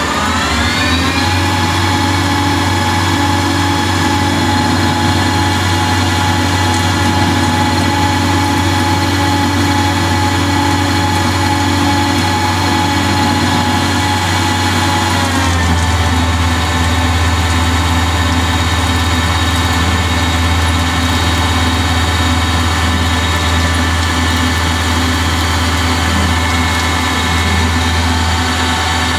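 Ganesh CNC lathe running a part cycle: the spindle motor winds up with a rising whine in the first second, runs at a steady pitch, changes speed about halfway through, then winds down near the end.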